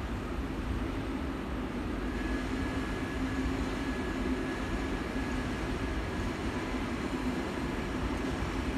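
SNCB M6 double-deck push-pull train standing at the platform, its electrical equipment and ventilation humming steadily; a faint high whine joins about two seconds in.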